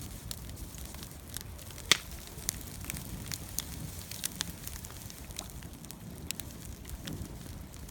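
Wood campfire burning, crackling with irregular sharp pops over a low rumble of flame, with one louder pop about two seconds in.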